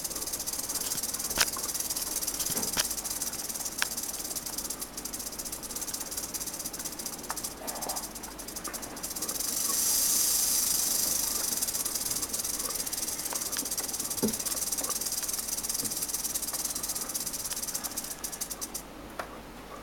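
Western diamondback rattlesnake rattling its tail: a continuous high-pitched buzz that swells about halfway through and cuts off shortly before the end, the snake's defensive warning. A few sharp clicks sound over it.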